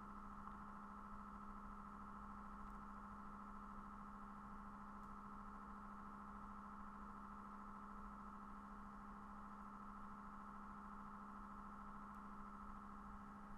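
Faint steady hum of a few held tones, one low and a cluster higher up, unchanging throughout; otherwise near silence.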